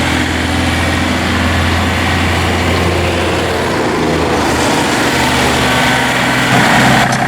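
Three-cylinder Yanmar diesel engine of a John Deere 3025E compact tractor running steadily. Its note shifts about four seconds in, and the sound changes abruptly near the end.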